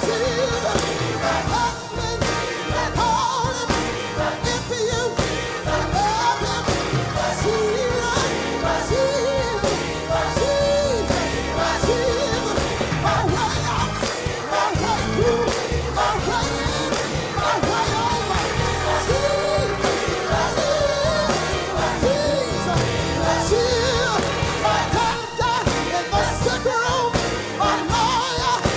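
Gospel mass choir singing with a lead vocalist over a steady beat.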